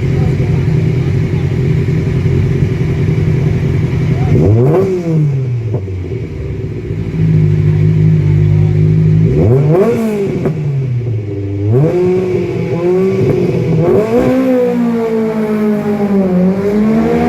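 Rally car engine held at steady high revs on launch control, then the revs sweep sharply up and fall away, about four and a half and nine and a half seconds in. In the last few seconds the revs rise and fall unevenly.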